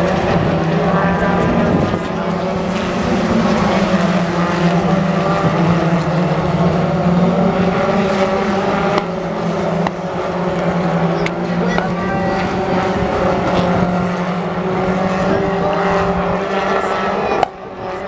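British Touring Car Championship racing cars' engines running hard through a bend, several cars passing one after another so the engine notes rise and fall without a break. The sound drops away abruptly near the end.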